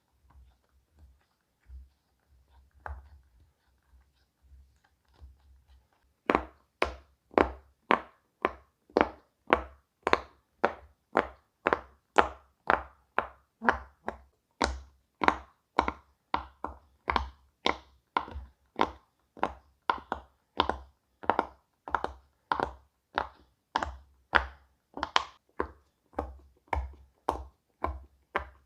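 Bubbles of a silicone pop-it fidget toy being pressed one after another: a steady run of sharp pops, about two a second, starting about six seconds in after a few faint soft taps.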